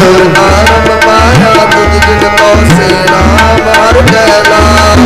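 Tabla playing a steady rhythm under a held harmonium melody, the accompaniment of Sikh kirtan between sung lines. The bass drum strokes now and then bend upward in pitch.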